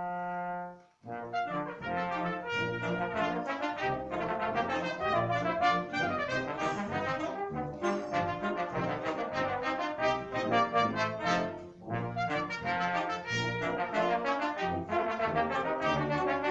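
Wind band with trumpet and trombone soloists playing. A held chord cuts off about a second in, then quick running notes over a pulsing bass line, with a brief dip near the end.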